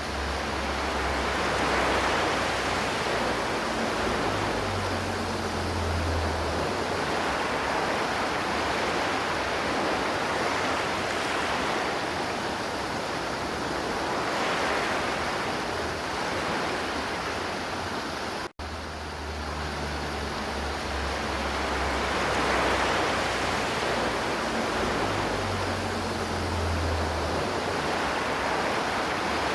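River water flowing in a steady rush that swells and eases gently. It cuts out for an instant about two-thirds of the way through.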